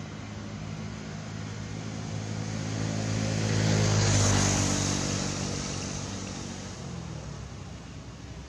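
A motor vehicle passes by. Its engine hum and rushing noise build to a peak about four seconds in, the pitch drops as it goes past, and then it fades away.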